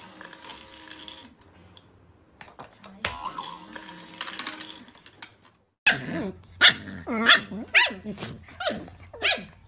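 Puppies yipping and barking: a quick run of short, high, loud calls starting about six seconds in, about two a second. Before that there is only a faint steady tone.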